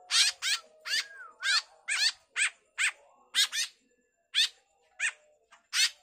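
Fledgling white-breasted woodswallows (kekep) begging for food: a quick run of short, shrill calls, several a second, with a brief pause about two-thirds of the way through.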